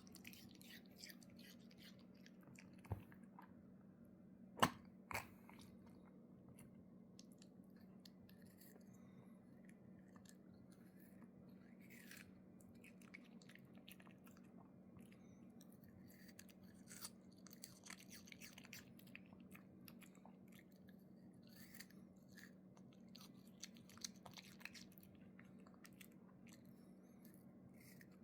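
A dog chewing and crunching on something, faint scattered crunches and clicks, a few sharper ones in the first five seconds, over a steady low hum.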